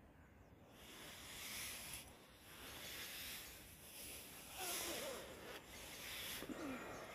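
Faint rustling and rubbing of the nylon cover of a Snugpak Hammock Cocoon as the person inside shifts, coming in soft swells every second or two.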